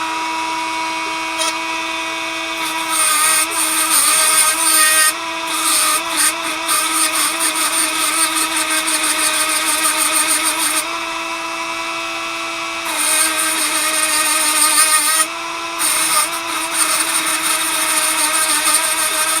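Dremel rotary tool running with a steady high whine, cutting a notch into a metal vise pin: a harsh grinding hiss comes in a few seconds in and returns in several passes with short pauses, the motor's pitch wavering under the load.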